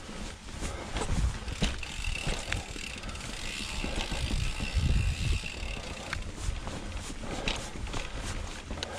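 Mountain bike climbing a rocky, rooty dirt trail: tyres rolling over dirt, roots and rocks, with scattered clicks and knocks from the bike's drivetrain and frame.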